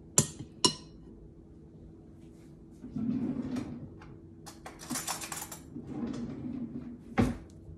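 A metal spoon knocked twice against a glass mixing bowl, two sharp ringing clinks within the first second. Kitchen handling and rustling follows, with a single sharp knock near the end.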